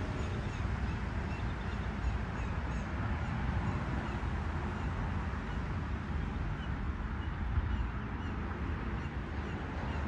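Outdoor ambience: a steady low noise with faint, short, high bird chirps scattered through it.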